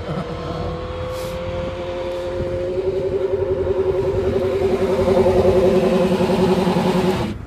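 Acceleration F1 single-seater race car's engine running at steady revs while the car spins donuts, its tone wavering as it grows louder with the car coming close. The sound cuts off abruptly near the end.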